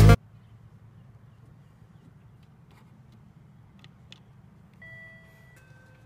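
Door-entry intercom call tone after its button is pressed: two steady electronic tones about five seconds in, the second lower and following straight after the first. Before it there is only a faint low hum and a few small clicks, and edited-in music cuts off at the very start.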